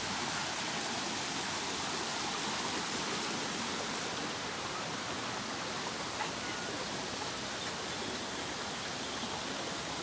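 Shallow rocky stream rushing over stones, a steady even hiss of running water.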